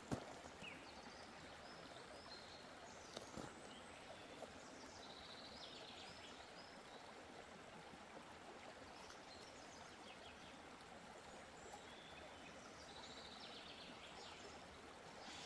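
Faint, steady rush of a shallow mountain river running over a stony bed, with a few faint bird chirps now and then.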